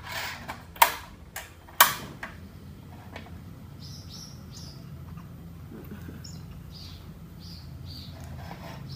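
Two sharp knocks of a metal wok and cookware being handled about a second apart near the start, with a few lighter clicks. Then a run of short, high chirps from small birds.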